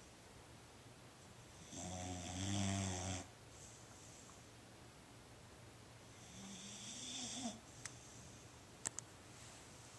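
Boxer dog snoring: a loud, pitched snore about two seconds in lasting over a second, then a softer one that builds around six seconds in. Two sharp clicks near the end.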